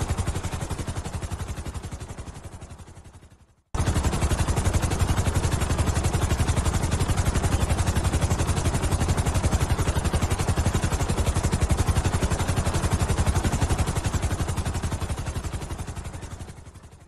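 Helicopter rotors beating in a rapid, even chop. The sound fades away and cuts out about three and a half seconds in, then comes back suddenly at full strength, holds steady, and fades out again near the end as the helicopter passes off.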